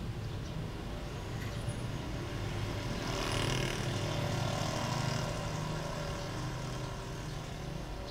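Road traffic: a steady low engine rumble, with a vehicle passing that swells loudest about three to five seconds in, then fades.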